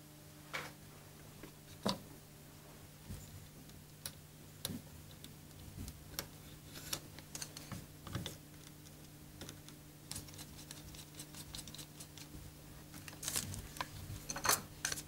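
Faint, irregular small clicks and taps of metal clarinet keys and small hand tools being handled while the keys are padded and fitted, the clicks coming thicker and louder near the end. A steady low hum runs underneath.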